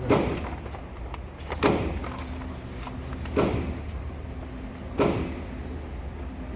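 Gunshots at slow, regular intervals, about one every second and a half, each a sharp crack with a short echoing tail, most likely from another shooter on the range.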